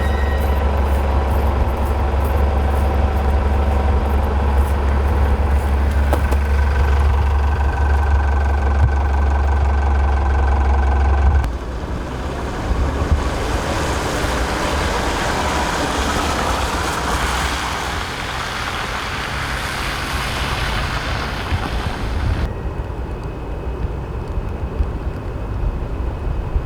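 A vehicle engine runs close by with a deep, steady rumble. About eleven seconds in it cuts off abruptly and gives way to an even rushing noise of street traffic, which drops quieter near the end.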